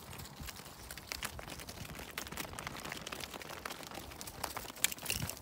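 Irregular crunching steps on frozen, frost-covered ground: a scatter of short clicks and crackles, with one sharper snap near the end.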